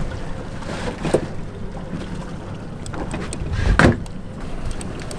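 Steady low hum of a boat's twin outboard motors, with a few knocks and clatters of gear being handled on the deck; the loudest knock comes a little under four seconds in.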